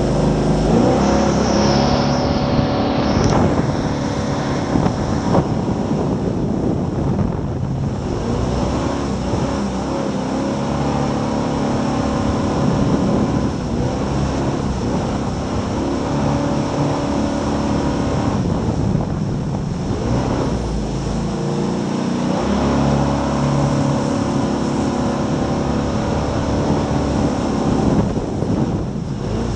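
Jet boat's fuel-injected 383 Chevy V8 running hard, its pitch climbing and dropping again and again as it revs up and eases off, over steady rushing noise.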